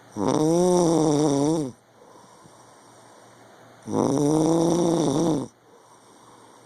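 A man snoring loudly in his sleep: two long snores of about a second and a half each, roughly four seconds apart, with a buzzing, slightly wavering pitch and quiet breathing between them.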